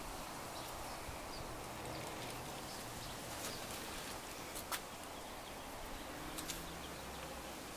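Quiet outdoor background noise, a steady hiss, with a few faint clicks; the sharpest click comes a little past halfway.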